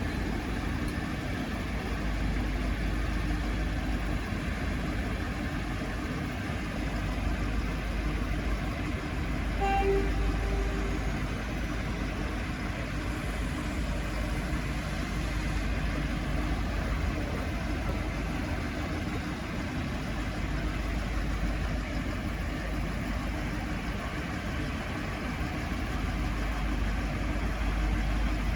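Diesel railcars idling with a steady low rumble, and one short tone lasting about a second, about ten seconds in.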